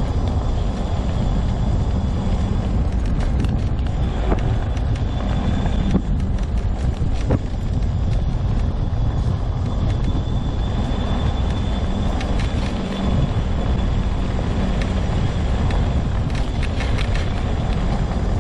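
Homemade all-wheel-drive mobility scooter rolling steadily along a trail: a continuous rumble of wheels and drive, with a faint high whine that comes and goes and a few sharp knocks.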